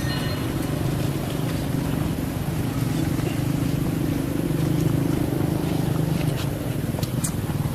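A steady, low motor-like drone that swells a little in the middle, with a few faint clicks near the end.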